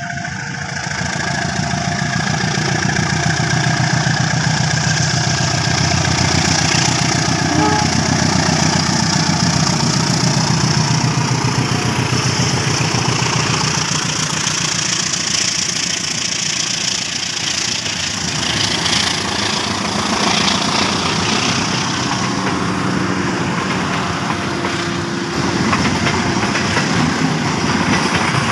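A double-headed passenger train passes close by. Its two diesel-electric locomotives run loud and heavy for the first several seconds, then the coaches roll past with steady wheel-on-rail noise and clacking over the rail joints. At the very start an alternating two-tone level-crossing alarm is sounding.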